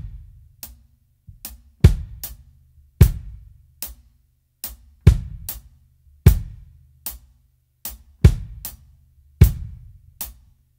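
Kick drum of a drum kit playing a repeating syncopated pattern, doubled by feet stamping along on the floor as body-percussion kick drum. Lighter, sharper hits fall between the heavy kick beats.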